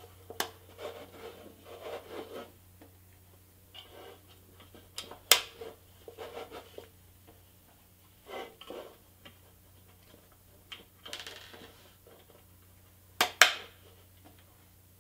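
Small headlight pieces being pressed and popped into the grille of a pressed-steel toy truck cab, with light rubbing and scraping of the cab on a wooden bench. Sharp clicks mark the pieces going in, the loudest about five seconds in and two close together near the end.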